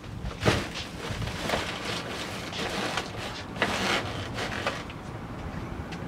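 Plastic trash bag rustling and a few knocks from a wheeled plastic garbage bin as a bag of rubbish is dropped in.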